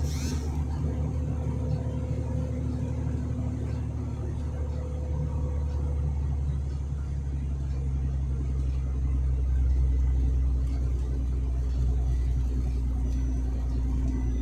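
Truck engine droning steadily while driving, heard from inside the cab, getting a little louder a bit past the middle. There is a brief high swish right at the start.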